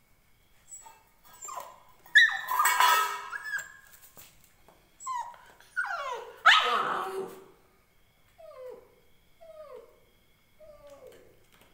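Indian Spitz puppy crying: two loud, drawn-out yelps about two and six and a half seconds in, then a string of short, fainter whimpers that slide down in pitch, roughly one a second.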